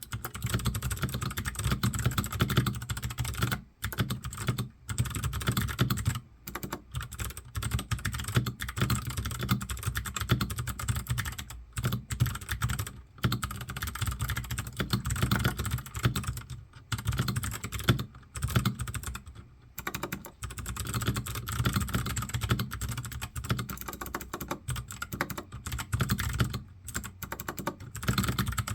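Continuous fast typing on a Royal Kludge RK61 mechanical keyboard with clicky Kailh Box White switches, stock except for a band-aid-modded spacebar. A dense run of keystroke clicks, broken by a few brief pauses.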